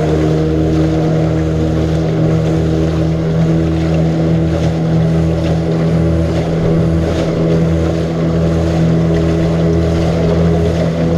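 Small outboard motor driving a boat at steady cruising speed, its engine note constant throughout, with water rushing and splashing along the hull.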